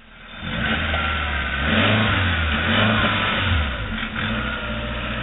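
Suzuki Jimny's engine revving up and down repeatedly as the 4x4 works through rutted dirt off-road.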